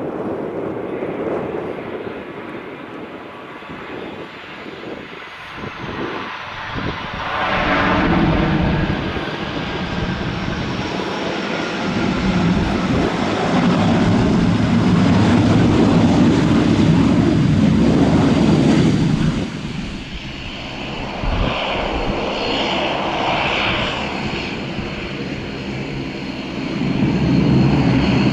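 De Havilland Canada Dash 8-400 (Q400) turboprop airliner's engines and propellers droning as it lands and moves along the runway, swelling and fading as it passes. A high turbine whine falls in pitch in the first few seconds, and the sound grows louder again near the end.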